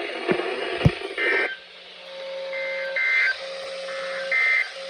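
Radio static with two sharp clicks, then a NOAA Weather Radio SAME alert header: three short bursts of raspy digital data tones about a second and a half apart, with a steady low hum between them.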